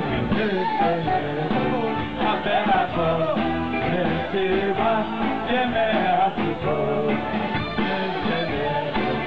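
Men singing a Sephardic religious song into microphones over a PA system, with electronic keyboard accompaniment.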